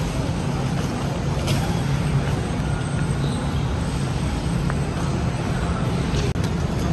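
Steady low rumble of a moving vehicle, with an even hum underneath.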